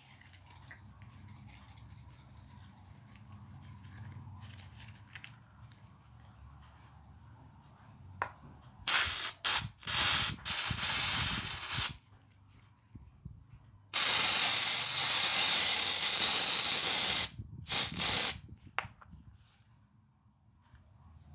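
An aerosol can of party string spraying in hissing spurts. About nine seconds in comes a run of short spurts. After a brief pause there is one long spray of about three seconds, followed by two more short spurts.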